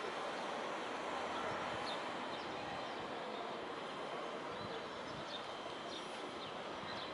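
Steady outdoor city background noise, with small birds chirping faintly now and then.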